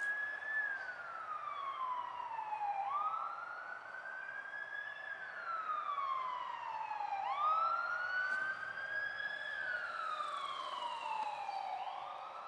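Emergency vehicle siren in a slow wail, its pitch rising and falling about every four and a half seconds.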